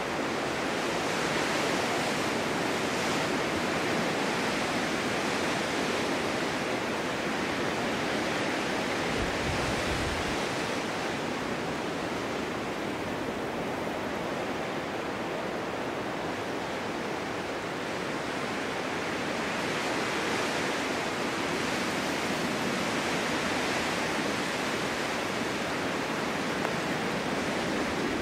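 Winter wind blowing in a snowstorm: a steady rushing that swells and eases in slow gusts, with a brief low rumble about nine seconds in.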